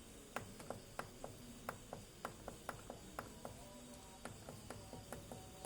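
A run of sharp, short clicks, irregularly spaced at about two to three a second.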